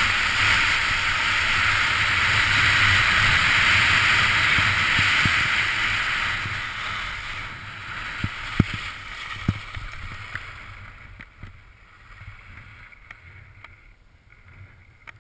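Skis hissing and scraping over spring snow, with wind rushing on a head-mounted camera's microphone. The sound fades away over the second half as the skier slows to a stop, with a few sharp clicks along the way.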